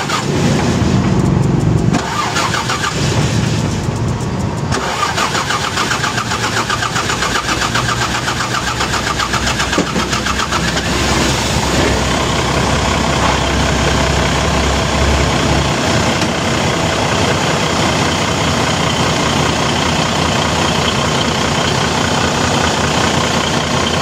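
Mitsubishi Fuso 6M70 six-cylinder diesel engine cranking for several seconds before it catches, then running on at a steady idle. This is a hard start, slow to fire even with a new supply-pump plunger fitted.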